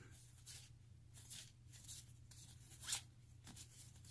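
Game cards sliding and rubbing against each other as a deck is flipped through by hand: a run of soft swishes, about two a second, the loudest about three seconds in.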